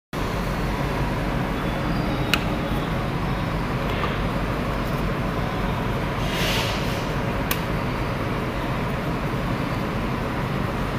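Steady low rumble and hiss of background noise, with two sharp clicks about five seconds apart and a brief hiss shortly before the second.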